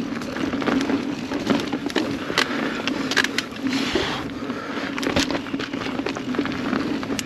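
Kona Process X mountain bike ridden fast downhill: a steady rumble of tyres rolling over dirt, broken by frequent sharp knocks and rattles from the bike as it hits rocks and roots.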